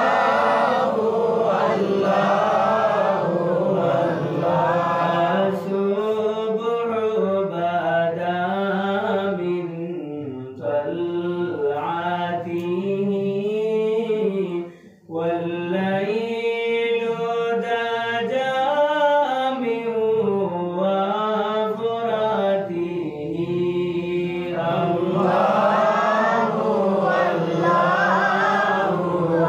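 Devotional chanting of durood sharif, blessings on the Prophet, sung to a slow, drawn-out melody with a brief break about halfway.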